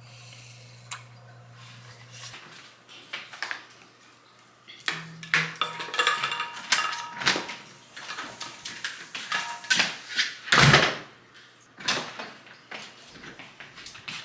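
A door opening and shutting amid knocks and clatter, with one loud slam about ten and a half seconds in. A low steady hum cuts off about two seconds in.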